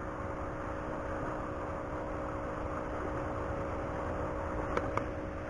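Steady hum of a distant motor over a steady background hiss, with a couple of faint clicks near the end.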